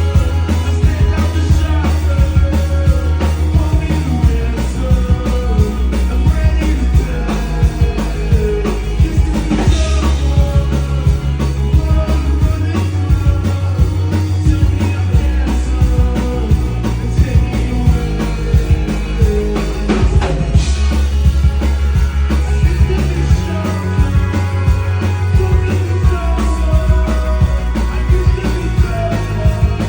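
Live rock band playing: drum kit keeping a steady beat under sustained bass notes that change every few seconds, with guitar lines above, and cymbal crashes about ten and twenty seconds in.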